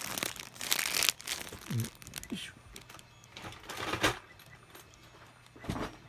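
Plastic courier mailer bag crinkling and rustling in several short bursts as it is handled and pulled at to get it open.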